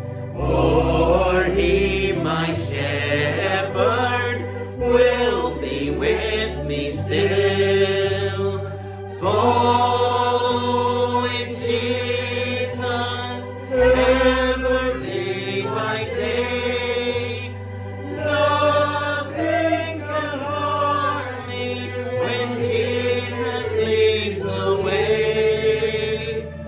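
Congregation singing a slow hymn over an instrumental accompaniment of sustained bass notes that change every second or two.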